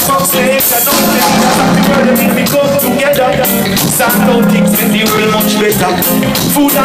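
Live reggae band playing, electric guitar and drums over a steady beat.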